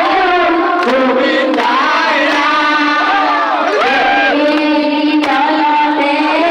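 A woman singing into a microphone, with long held notes that slide up and down in pitch.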